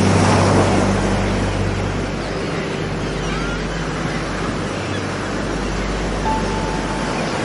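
Heavy storm surf breaking and washing over the shore, with a wave crashing at the start. Faint held notes of background music sit beneath it.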